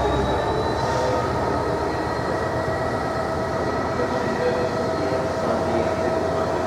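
Bogie coal hopper wagons of a freight train rolling past, a steady rumble and rattle of wheels on rail. Thin, faint whining tones from the wheels run over it.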